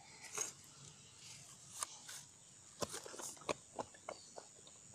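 Close handling crackles of dry rice straw and a plastic bag: a string of sharp clicks and rustles, coming thicker in the second half.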